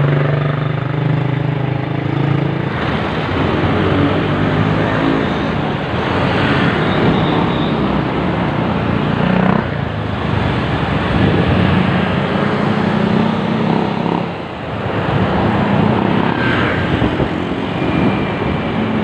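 Close city road traffic: motorcycle and car engines running alongside and passing, over a steady rush of road noise. There is a brief lull about fourteen seconds in.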